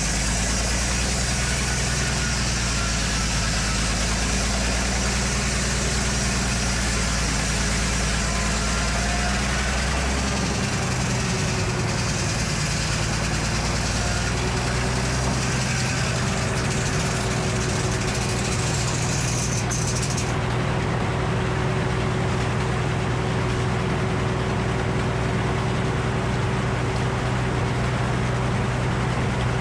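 Engine-driven Frick circular sawmill running steadily. Its low hum rises in pitch about a third of the way through, and a high hiss stops about two-thirds of the way through.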